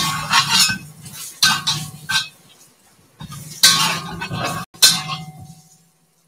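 Wok shovel clanking and scraping against a cast iron wok as strips of beef are stir-fried, in several short bursts of clinks with brief metallic ringing. The clatter cuts off suddenly about a second before the end.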